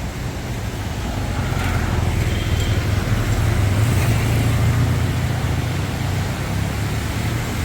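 A road vehicle passing close by: a low engine and tyre rumble that builds to a peak about halfway through, then fades.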